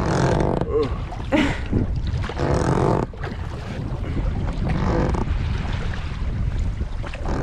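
Wind buffeting the microphone in a deep rumble while an inflatable dinghy is rowed over choppy sea, with louder rushes of noise every second or two as the oars stroke.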